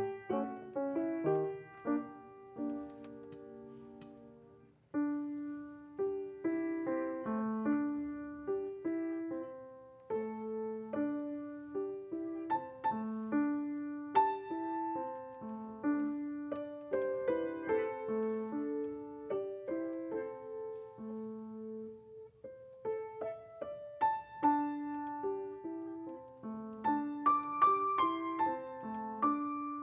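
Solo piano playing a slow piece of separate notes and chords. A chord near the start dies away, and the playing picks up again about five seconds in.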